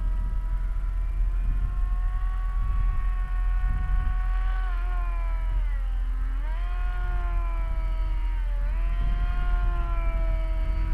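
Multiplex EasyStar RC plane's electric motor and pusher propeller whining overhead, its pitch wavering and dipping sharply twice, about halfway through and again near three-quarters of the way, then rising again. A steady low rumble lies underneath.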